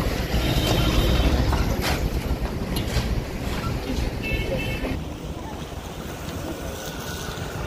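Low rumble of wind buffeting the microphone over outdoor street noise, easing off about five seconds in.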